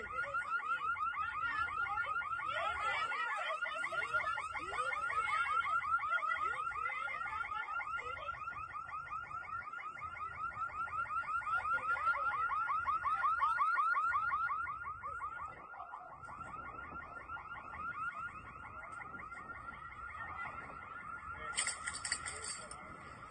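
An electronic alarm siren sounding a fast, continuous warble, the same chirping tone repeating several times a second without a break. It grows fainter about two-thirds of the way through, and a brief rustle of handling noise comes near the end.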